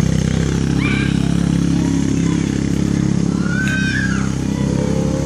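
Four-wheeler (ATV) engine running steadily while towing a small boat across grass, with children's high-pitched shouts about a second in and again near four seconds.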